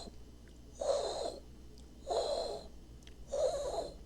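Loud heart murmur of the intense, grade 6 kind produced by severe aortic stenosis: a harsh whoosh with each heartbeat, three times, about 1.3 s apart.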